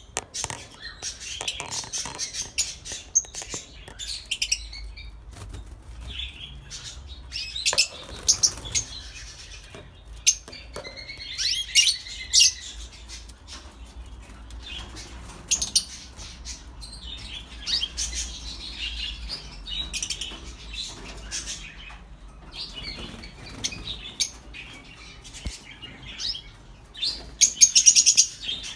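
Masked lovebirds chirping and chattering in repeated bursts of high, rapid calls, with scattered sharp clicks between them. The loudest burst of chirps comes near the end.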